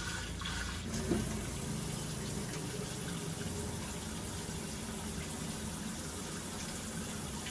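Kitchen tap running steadily into a pot at the sink while rice is rinsed in it by hand.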